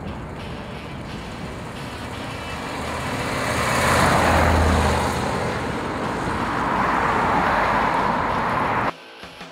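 A 1964 Ford Galaxie 500XL with a 390 cubic-inch FE big-block V8 and dual exhaust drives past among road traffic. It is loudest, with a low rumble, as it passes close about four seconds in, then pulls away. The sound cuts off suddenly near the end.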